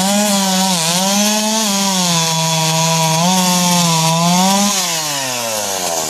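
Two-stroke chainsaw held at high revs while cutting a log, its pitch dipping briefly twice under load, then winding down near the end as the throttle is let off.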